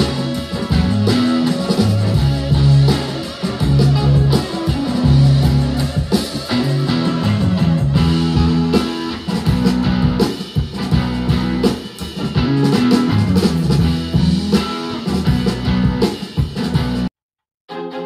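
Guitar-led music track playing with a steady beat, cutting off suddenly about a second before the end.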